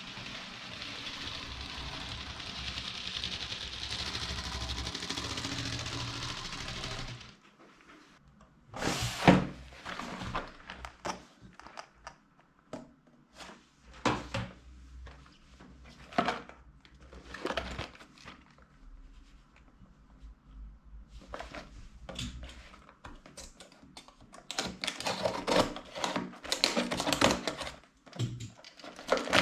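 A steady hiss lasts about seven seconds and then cuts off. After it come the handling sounds of a Lego Technic set being unboxed: a cardboard box opened and plastic parts bags moved about, with scattered knocks and clicks that grow busier near the end.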